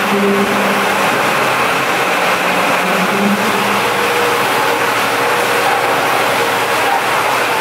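Ricardo diesel engine of a 700 kW generator set running steadily, a loud continuous engine noise.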